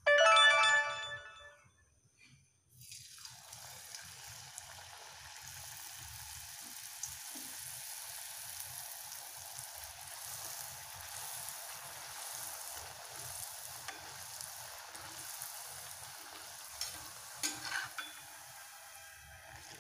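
A loud pitched tone for about a second at the start, then, from about three seconds in, the steady sizzle of a puri deep-frying in hot oil in a kadai, with a few clicks of a metal slotted spoon against the pan near the end.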